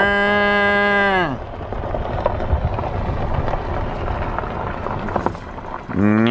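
A cow mooing: one long moo that holds a steady pitch and falls off just over a second in, then a second, lower moo starting near the end. Between them there is a low steady rushing noise.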